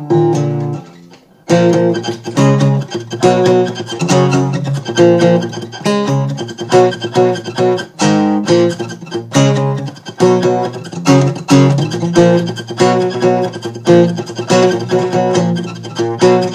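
Guitar strummed in an instrumental break of a song, a steady rhythm of chords that stops for a moment about a second in and then carries on.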